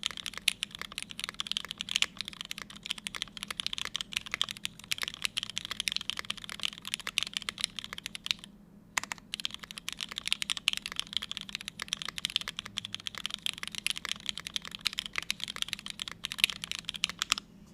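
Steady fast typing on a Forever65 mechanical keyboard with lubed Cherry MX Black linear switches, a carbon-fibre plate, GMK keycaps and no foam: a dense run of keystroke clacks. It pauses briefly a little past halfway, then runs on until it stops just before the end.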